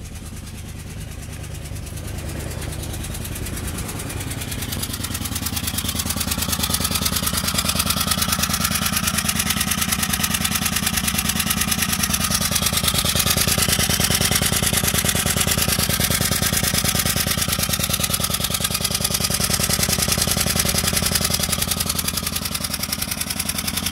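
Citroën C2 1.1 petrol engine idling just after a start. It runs loud and rough with a fast, uneven pulsing, growing louder over the first few seconds and then holding steady. The noise and juddering are a misfire, with fuel found in a spark plug well, which the mechanic suspects comes from the injectors or the spark plugs.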